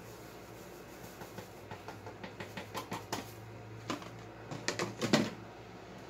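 Irregular light clicks and taps of kitchen containers being handled at a countertop, with a few louder knocks about five seconds in.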